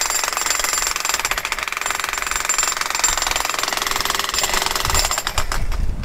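Jackhammer breaking up concrete, a fast, continuous hammering that eases off near the end as a low rumble comes in.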